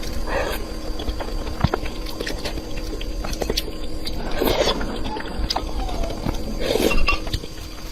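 A person chewing food close to the microphone: many small wet clicks and smacks, with three short, louder noisy sounds about half a second, four and a half seconds and seven seconds in.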